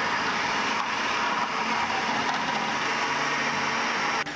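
Food processor running with its strip-cutting disc, shredding zucchini pushed down the feed tube into strips. The steady motor and cutting noise drops off sharply near the end as the machine is switched off.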